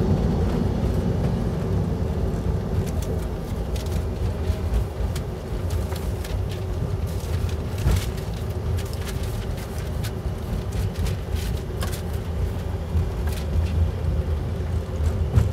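Airbus A330 on its landing roll-out, heard from the cockpit: a steady low rumble of the engines and wheels on the runway that eases off over the first few seconds as the jet slows. There is a sharp click about halfway through.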